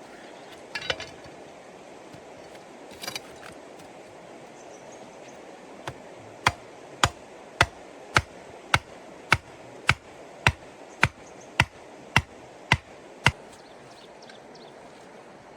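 A run of about thirteen sharp, evenly spaced knocks, a little under two a second, after two brief clatters earlier on, over a steady background hiss.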